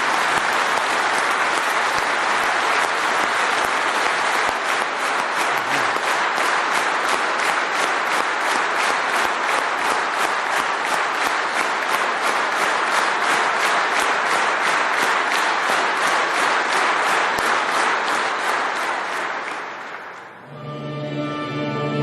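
Large audience applauding, clapping together in a steady rhythm. It fades out near the end as orchestral music with long held chords begins.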